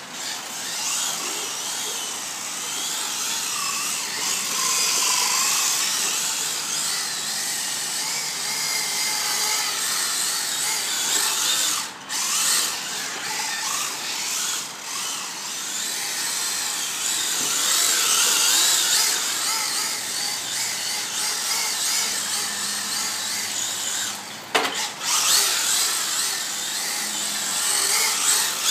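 Electric motors of 1/16-scale Traxxas VXL RC cars whining as the cars are driven, the pitch rising and falling with the throttle, over a steady wet hiss. There are brief breaks about twelve seconds in and near the end.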